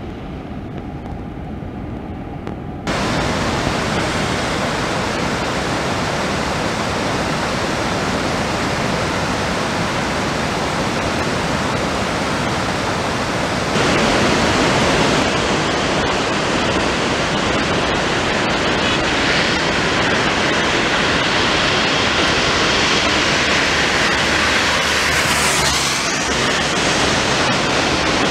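Steady rushing of heavy rain and running floodwater in a storm. The noise jumps louder and brighter abruptly about three seconds in and again about halfway.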